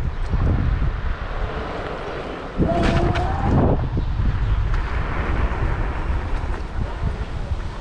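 Wind buffeting the microphone of a moving electric scooter, over a low road rumble. About two and a half seconds in, a short pitched sound lasts about a second.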